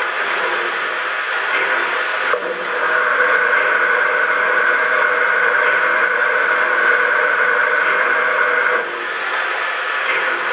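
A standing Lionel model steam locomotive's onboard sound system playing a steady steam hiss. A louder, higher hiss cuts in with a click about two seconds in and drops back about nine seconds in.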